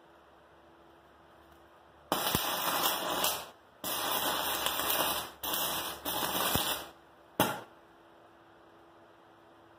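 Arc of a 36-volt battery-powered stick welder crackling and hissing in four short bursts as the rod is struck and broken off, then one sharp crack.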